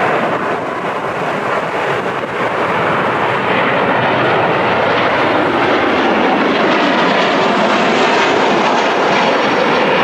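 Jet airliner engines running as a loud, steady roar. About halfway through, the sound grows brighter and higher.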